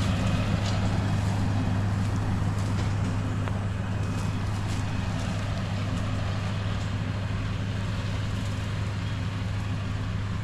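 A motor vehicle's engine running at a steady speed, a low even drone with no change in pitch, cut off suddenly at the end.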